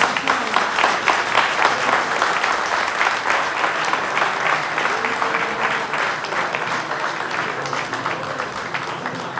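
Crowd of spectators clapping and applauding, a dense patter of many hands with a few voices calling out about halfway through; the applause thins out near the end.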